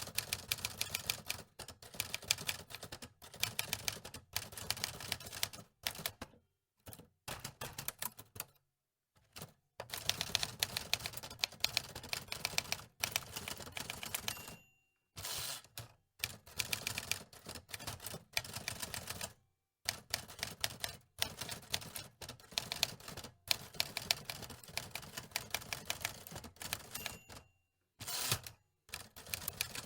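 Antique manual typewriter being typed on: keys clacking in quick runs of many strikes a second, broken by brief pauses.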